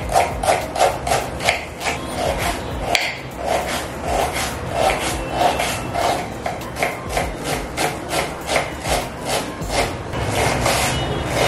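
Rhythmic rubbing and scraping strokes, about three a second, with one sharper knock about three seconds in.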